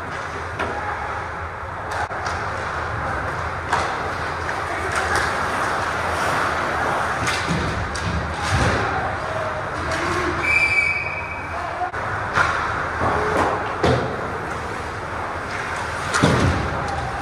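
Ice hockey play in an arena: skates scraping and carving the ice over a steady rink din, with sharp knocks and thuds of sticks, puck and players against the boards, the loudest a few seconds before the end. A brief high whistle sounds about ten and a half seconds in.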